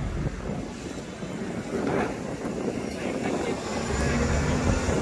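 Hybrid-electric city bus driving slowly past and pulling away amid street traffic, its engine noise low and steady and a little louder near the end.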